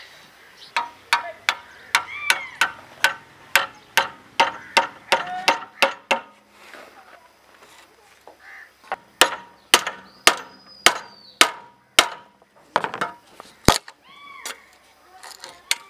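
Hammer striking a screwdriver set against the handle rivets of an old crosscut saw, knocking the handle loose from the rusty blade: sharp metal-on-metal taps about two a second. The taps pause about six seconds in, start again about three seconds later, and end with one harder strike.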